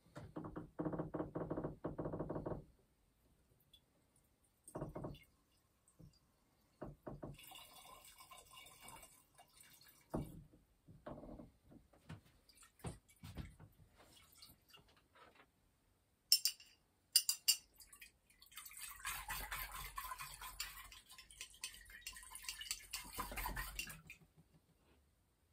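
Liquid being poured and dripping in short spells, with a few sharp clinks, most likely of glassware, about two-thirds of the way through.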